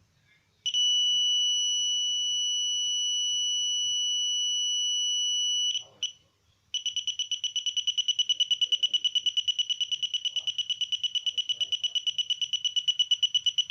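Simple metal detector's high-pitched audio tone, held steady for about five seconds. It stops briefly, then comes back as a fast pulsing beep.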